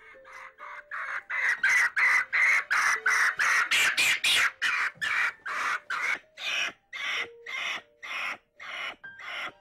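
Capuchin monkey screeching over and over in quick rasping calls, about three a second, as it is handled for a blood-sugar test. The calls are loudest in the first half and grow fainter toward the end.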